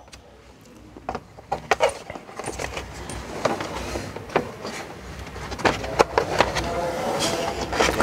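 Scattered plastic clicks and knocks as a 2012 Subaru Outback's B-pillar trim panel is handled and fitted back over the door pillar, over a low background rumble.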